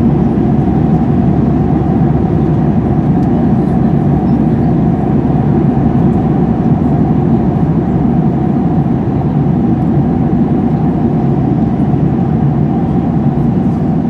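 Steady drone of a jet airliner's cabin in flight: engine and airflow noise through the fuselage, a deep rumble with a steady hum running through it.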